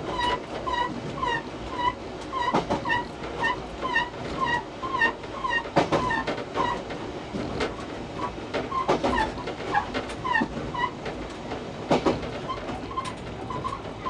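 Electric commuter train running on the rails, with a sharp wheel knock over a rail joint every few seconds. Over it, a level-crossing warning bell rings in short repeated tones, about two a second.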